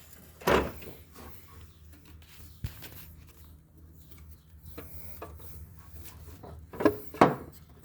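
Knocks and clatter of hands and tools working at a cover on the engine, trying to pop it off: a sharp knock about half a second in, a light click a few seconds later, and two knocks close together near the end.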